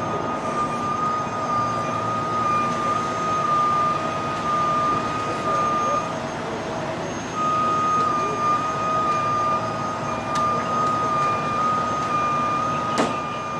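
Heavy rotator tow truck working under load: machine noise under a steady high-pitched tone that drops out briefly around the middle and then resumes, with a sharp knock near the end.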